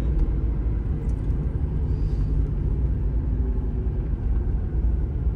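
Mitsubishi Pajero's diesel engine and drivetrain heard inside the cabin as the vehicle rolls slowly, a steady low rumble.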